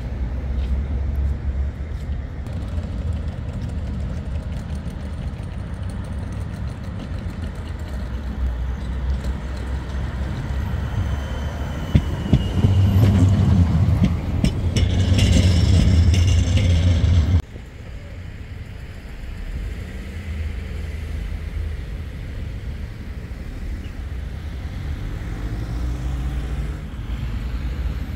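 Low, steady rumble of road vehicles, with a louder stretch of rumble and hiss about halfway through that cuts off suddenly.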